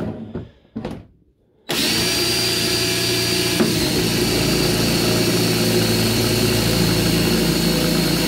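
DeWalt cordless drill drilling a hole through thin plastic, running at a steady speed with a high whine, starting about two seconds in. A few light handling knocks come just before it starts.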